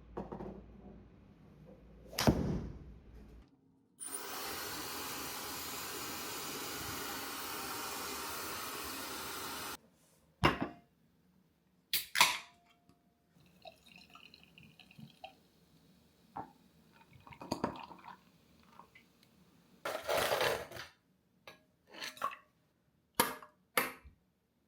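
Water running steadily from a tap for about six seconds, then a string of separate sharp clinks and knocks.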